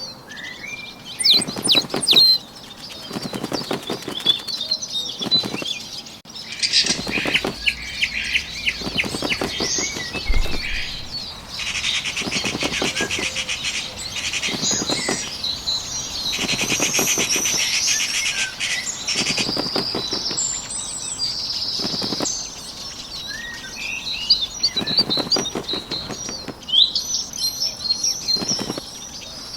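Bird wings flapping in short, repeated flutters, with small songbirds chirping and trilling over them.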